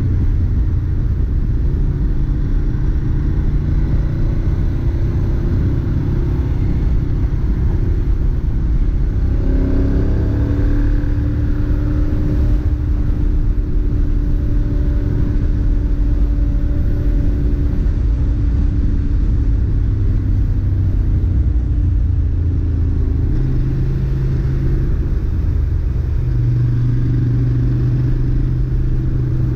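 2011 Ducati Monster 696's air-cooled L-twin engine through its stock exhaust, heard from the bike while riding at a steady pace, its note rising and falling a little as the throttle changes.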